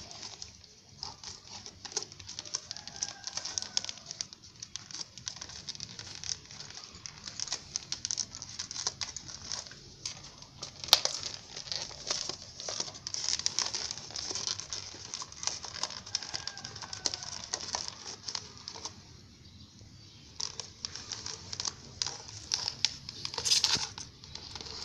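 A dog chewing and biting a paper noodle cup: fast, irregular crinkling and crackling of the cup, with one sharp crack about eleven seconds in and a louder flurry near the end.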